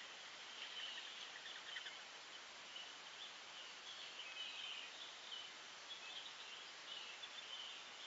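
Faint outdoor ambience: scattered small bird chirps and calls over a steady high-pitched background hum.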